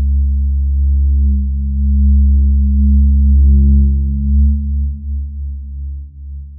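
Deep synthesized drone from a horror score: several low tones held together, swelling in at the start and easing off near the end.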